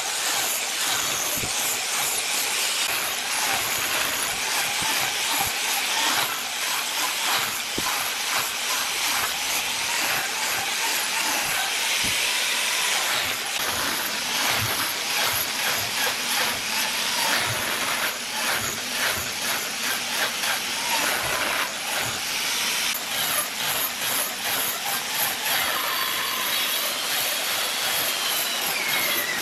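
Handheld electric angle grinder with an abrasive disc grinding and sanding a large wooden workpiece: a continuous rough, hissing grind with the motor's whine faintly wavering in pitch.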